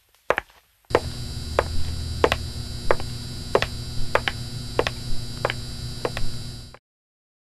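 Clicks of high heels stepping on a hard floor, about one every two-thirds of a second. About a second in, the steady electric buzz of a neon sign starts under them, and both cut off abruptly near the end.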